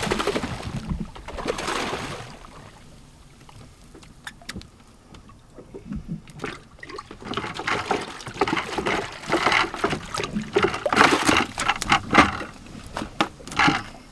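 Water splashing against a boat's hull, loudest in the first two seconds, followed by a run of irregular knocks and rustles.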